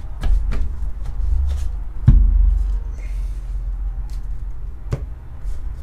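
A stack of Pokémon trading cards being gathered up and handled on a table: a few sharp taps and knocks of the cards, the loudest about two seconds in, over a low rumble of handling.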